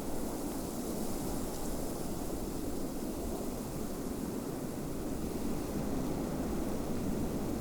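Snowstorm wind blowing steadily, an even low rush with a fainter hiss on top.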